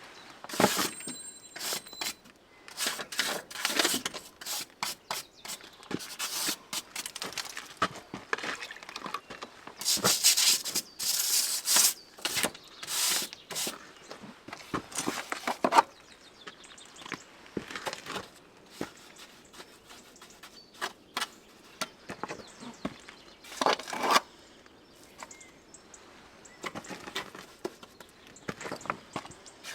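Irregular scraping, rubbing and knocking of hand work on a stone-and-mortar wall, with a run of louder scrapes about ten to thirteen seconds in and a sharp knock just before sixteen seconds.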